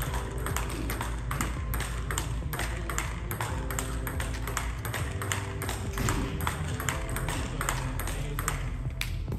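Table tennis rally: a celluloid-type ball clicking back and forth off rubber-faced bats and the table top, about two to three hits a second in an even rhythm.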